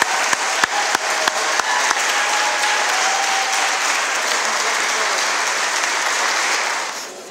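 Audience applauding, a roomful of hands clapping, with sharper separate claps at first, dying away just before the end.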